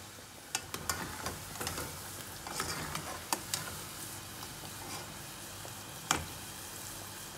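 Cubed potatoes deep-frying in oil in a small saucepan, a steady sizzle, while a metal spoon and a wire-mesh skimmer stir them and clink against the pan several times. The loudest clink comes about six seconds in.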